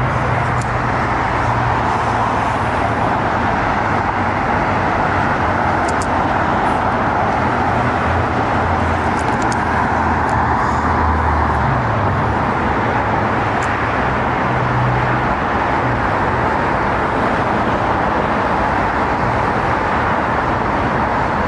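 Steady roar of city traffic, a continuous even rush with the low hum of engines shifting as vehicles pass.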